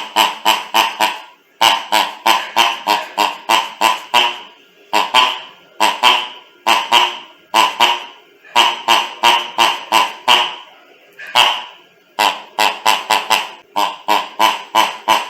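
Rubber pig dog toy being squeezed over and over, giving a honking squeak, the toy's 'ronc, ronc' grunt. The squeaks come in quick runs of three to six, about five a second, with short pauses between the runs.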